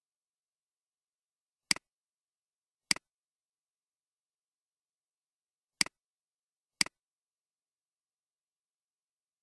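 Four sharp computer mouse clicks, each followed at once by a softer second click, in two pairs about a second apart, with silence between them.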